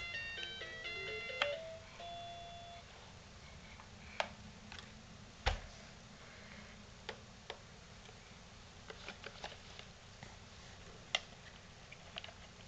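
Electronic toy blender shape-sorter playing a short beeping tune that ends about three seconds in, followed by scattered light clicks and knocks of the plastic toy being handled.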